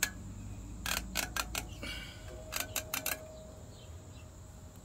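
Bicycle wheel spokes being worked by hand with a spoke wrench: small metallic clicks in quick runs, about a second in and again around two and a half to three seconds in, with a faint ring in between. The spokes are still too loose and need another round of tightening.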